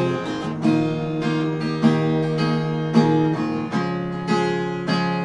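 Acoustic guitar playing a strummed and picked introduction, with a fresh chord or note attack about every half second to a second.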